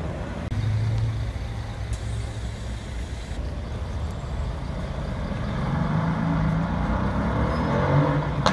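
City street traffic with vehicle engines running steadily; a heavier engine drone swells about six seconds in and rises in pitch near the end.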